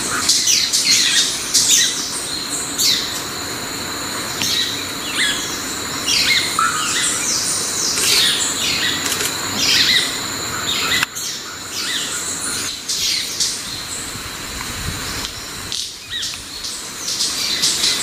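Manakins at a forest lek, with sharp wing snaps and many short, high calls that sweep quickly downward, repeated irregularly. They sound over a steady, high insect drone.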